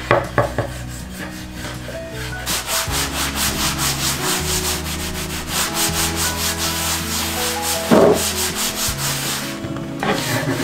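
Hand and cloth rubbing beeswax wax into a wooden cutting board in quick back-and-forth strokes, about four a second. There is one louder knock about eight seconds in.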